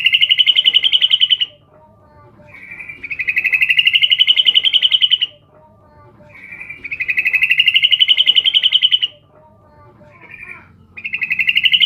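Female yellow-vented bulbul (trucukan) calling to draw a male: loud, fast chattering trills about two seconds long, each rising slightly in pitch and swelling in loudness. They repeat about every three seconds, with a short note before the last one.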